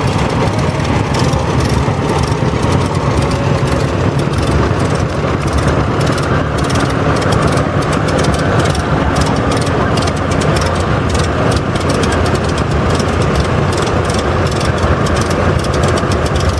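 Several antique farm tractor engines running at low speed as they drive past close by: a loud, steady low rumble with rapid firing pulses.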